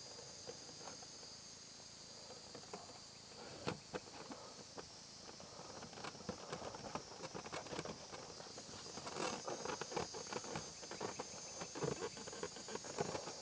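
A steady high insect chirring in the background, with irregular light clicks, taps and knocks that come thicker and louder from about halfway through.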